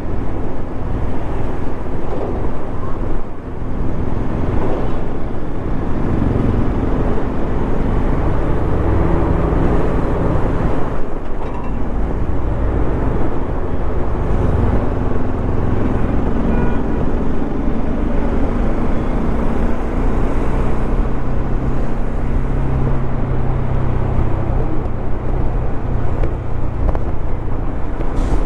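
Bajaj Dominar 400's single-cylinder engine running as the motorcycle rides along a highway, its pitch rising and falling with the throttle, with a steady rush of road noise underneath.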